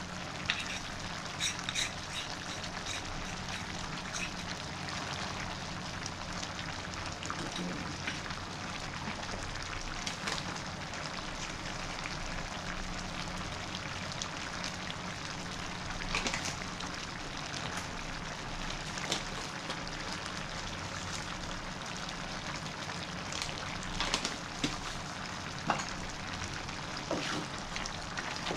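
Thick beef kurma gravy simmering in a pan on a gas stove: a steady hiss with scattered small pops and crackles.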